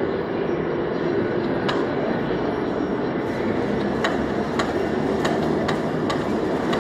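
Steady heavy-machinery din in a large workshop hall. From a little past halfway, sharp metallic clicks come roughly twice a second.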